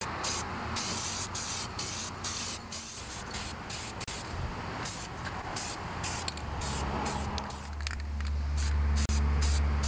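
Aerosol spray-paint can hissing in many short bursts, stopping and starting about once or twice a second, as black paint is sprayed on. A low engine drone comes in about six seconds in and is the loudest sound near the end.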